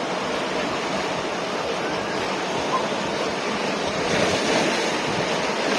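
Ocean surf breaking and washing on a beach: a steady rushing noise that swells a little about four seconds in.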